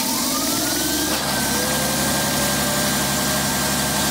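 John Deere 6.8-litre PowerTech inline-six diesel just after starting. Its pitch rises over about the first second as it picks up speed, then it settles into a steady idle, warming up.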